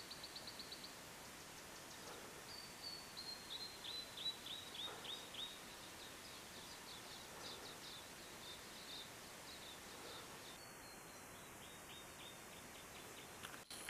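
Small bird calling in several runs of quick, high chirps, each note sliding downward, over a faint steady background hiss.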